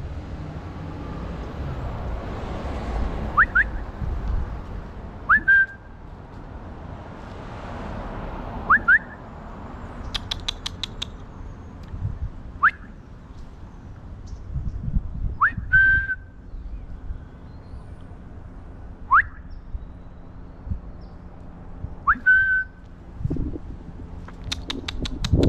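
A person whistling to call a cat: about seven short whistles, a few seconds apart, each sliding sharply upward, several ending on a briefly held note. A quick burst of rapid clicks comes twice, about ten seconds in and near the end.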